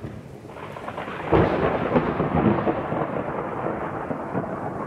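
Thunder sound effect: a rolling rumble that breaks loud about a second in and keeps rolling.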